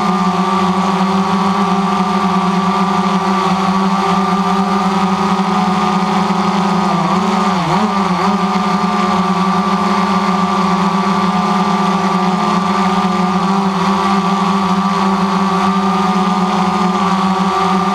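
DJI Phantom quadcopter's motors and propellers buzzing steadily at a hover, heard from on board the drone. The pitch dips and recovers briefly about seven seconds in.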